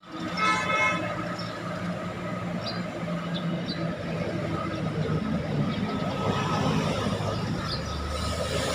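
Road traffic of cars, buses and scooters passing with steady engine and tyre noise. A brief high pitched tone sounds about half a second in.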